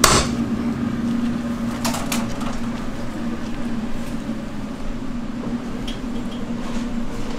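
Steady low machine hum in a candy kitchen, with a sharp knock at the very start and two short clatters about two seconds in.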